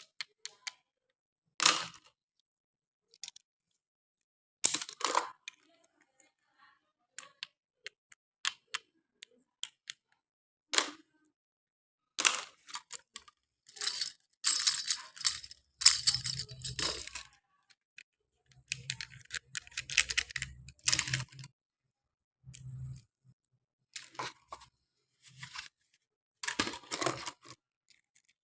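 Plastic toy and packaging being handled: irregular sharp clicks, taps and short crinkly rustles. Some of the denser bursts in the middle carry a low hum.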